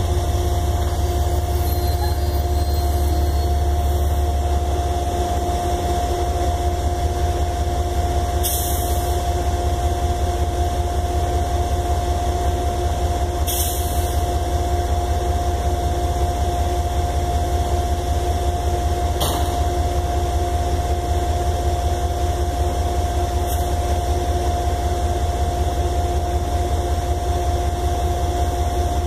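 Amtrak passenger train rolling through a grade crossing, a steady low rumble, with a steady two-note tone throughout and four brief sharp crackles about every five seconds.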